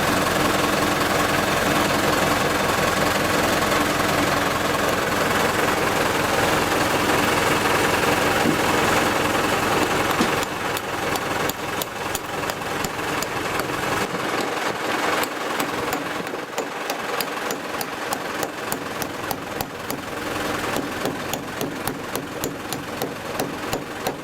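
Tractor engine running steadily while driving a John Deere 567 round baler. About ten seconds in, the level drops and a fast, regular ticking from the machinery sets in.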